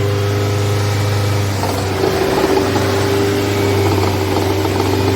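Nissan Almera engine running at a steady hum, with a rougher, uneven noise coming in about two seconds in.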